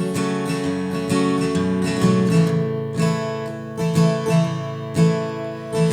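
Acoustic guitar playing a slow folk-style accompaniment, chords struck at a fairly even pace with notes ringing on, no singing.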